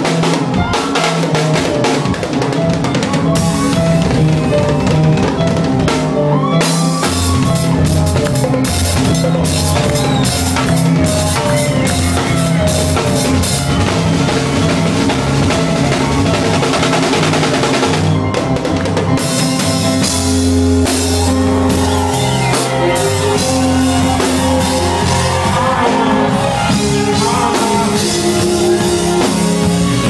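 Live band music with the drum kit loud and close: a steady beat of kick, snare and cymbals over a stepping low bass line, heard from on stage beside the drummer.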